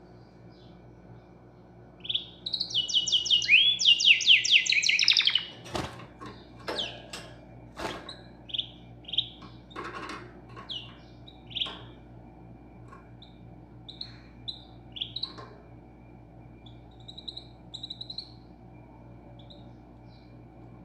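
Small bird chirping. About two seconds in it gives a loud, rapid run of repeated falling chirps lasting about three seconds, followed by a few sharp clicks and then scattered short single chirps. A faint steady hum sits underneath.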